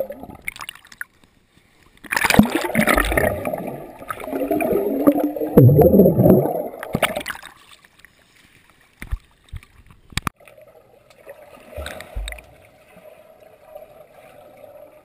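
Muffled pool water heard through a GoPro's waterproof housing: a few seconds of loud, uneven sloshing and gurgling, then quieter underwater sound with a few sharp clicks and a faint steady hum near the end.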